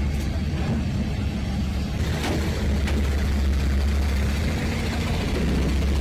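A heavy engine running steadily: a constant low rumble with no change in speed.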